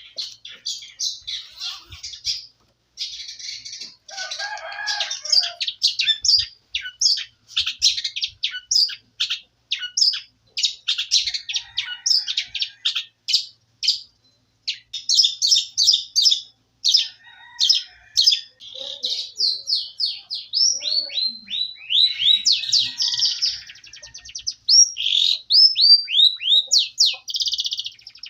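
Canary-type song: one songbird singing a long, continuous string of fast chirps, trills and rolls, with quick downward-sweeping notes in the latter half. This is canary song 'materi', the kind of recording played to tutor other songbirds.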